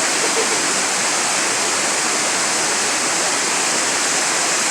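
Rushing water: a loud, steady, unbroken rush of falling water.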